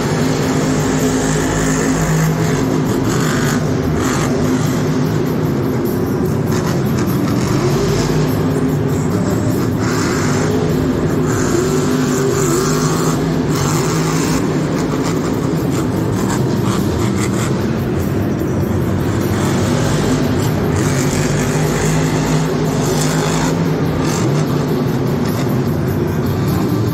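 Grave Digger monster truck's supercharged V8 running loud and revving hard through a freestyle run, its pitch rising and falling, over the general din of a packed arena.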